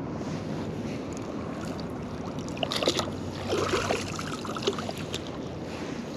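Water splashing and dripping as a magnet on a rope is worked through shallow river water, over a steady low rush. The splashes bunch up around the middle, with the loudest about halfway through.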